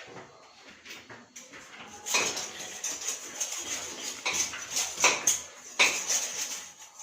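Irregular clinks, taps and scrapes of hard fittings and tools being handled while mounting a towel ring holder, growing busier about two seconds in.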